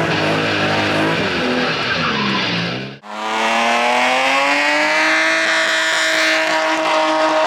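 Car engine at high revs with tyres squealing, as when drifting. It cuts off abruptly about three seconds in, then an engine climbs slowly in revs and holds high.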